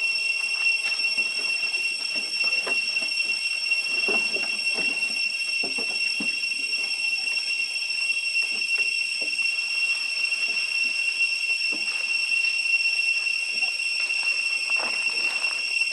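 Cicadas droning a steady high-pitched whine, with faint scattered rustles and knocks underneath.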